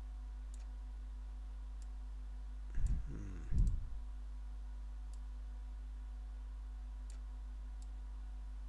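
Faint computer mouse clicks, about half a dozen short ticks spread out, over a steady low electrical hum. A short low murmur about three seconds in is the loudest sound.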